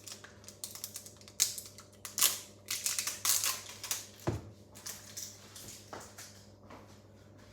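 Irregular crisp crackling and clicking from ingredients and utensils being handled while baking, busiest in the first half, with a single dull knock a little after four seconds in.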